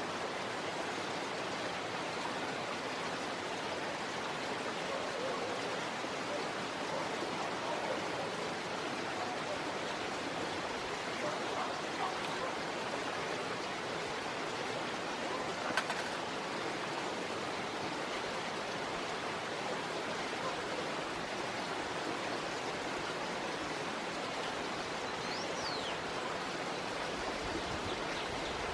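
Running rainwater in a ditch, a steady rushing noise. One sharp click about sixteen seconds in and a brief high whistle near the end.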